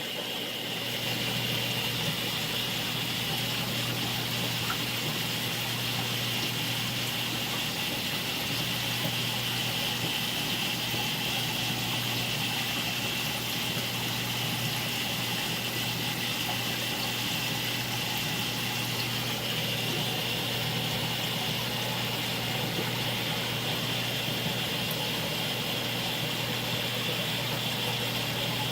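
Steady hum and water rush of saltwater aquarium pumps and filtration.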